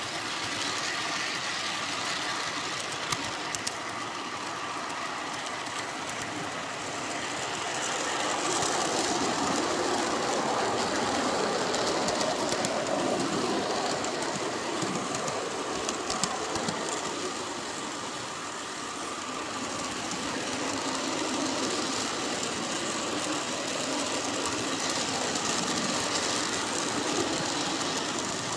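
G-scale model train rolling along its garden railroad track, heard from the caboose: a steady running clatter of wheels on rails with a few sharp clicks. It grows louder about a third of the way in, eases off briefly past the middle, then picks up again.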